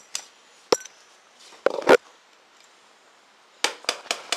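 A few knocks and metallic clinks of objects being handled, with a louder clatter about two seconds in. Near the end a rapid, even run of sharp ticking clicks starts, about five or six a second.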